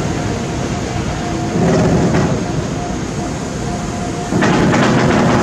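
Freight train passing, its wagons rolling over the rails with a continuous rumble that swells about one and a half seconds in and again near the end.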